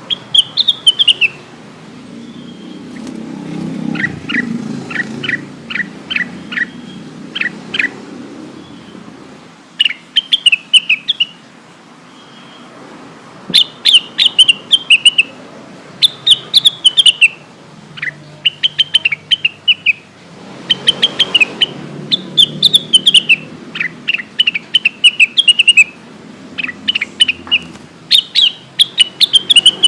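Cucak wilis (a leafbird) singing: phrase after phrase of quick, sharp chirps, each note sliding downward, with short pauses between phrases and a run of fast clipped notes early on. A low background rumble rises and falls under the song twice.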